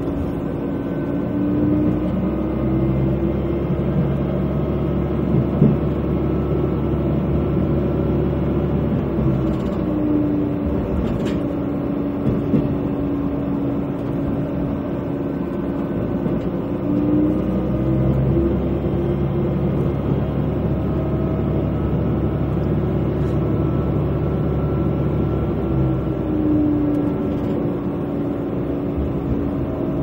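KiHa 120 diesel railcar under way, heard from inside the car: a steady diesel engine drone over a low rumble, its note sliding up and down several times, with a few faint clicks.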